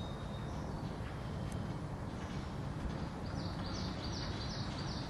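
Steady low rumble of road traffic. About three seconds in, a small bird gives a quick run of about five high chirps.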